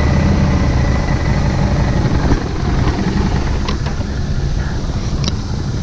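Harley-Davidson Street 500's liquid-cooled 500cc V-twin engine running steadily as the motorcycle is ridden at slow speed.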